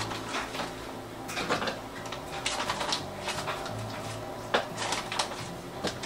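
Kitchen handling sounds: a plastic pouch of shake mix being rustled and light clicks and knocks of containers on the counter, as a string of separate short strokes over a low steady hum.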